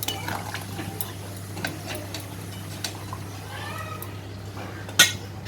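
Spatula stirring and scraping in a metal kadai of simmering potato, potol and prawn curry, with scattered light clicks and one sharp metal clank about five seconds in, over a steady low hum.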